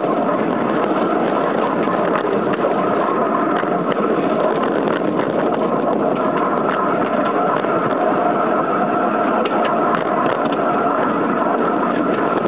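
Small petrol engine of a ride-on model Sik locomotor running steadily as it drives along the garden railway track, with a few sharp clicks near the end.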